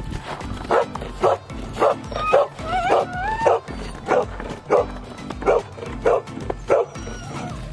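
A dog barking repeatedly at a steady pace, a little under two barks a second, with a few high rising whines mixed in around the middle. Background music plays underneath.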